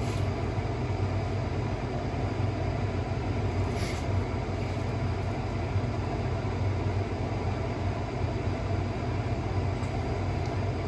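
Steady low mechanical rumble with a strong low hum, and a brief click about four seconds in.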